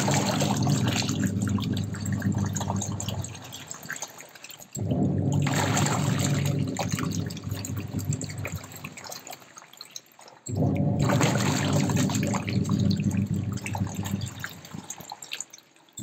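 LG 9 kg semi-automatic top-loader's wash tub agitating water and detergent to work up foam: the motor-driven pulsator hums and the water churns and sloshes. It runs in bursts of about four seconds, starting abruptly three times and fading out between them.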